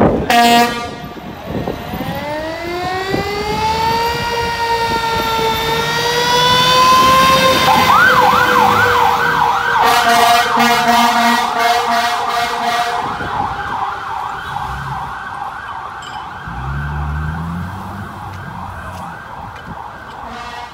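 Fire engine siren on a 2008 KME pumper pulling out on an emergency call. It opens with a short steady horn blast, then winds up into a rising wail. About eight seconds in it switches to a fast yelp, fading as the truck drives away.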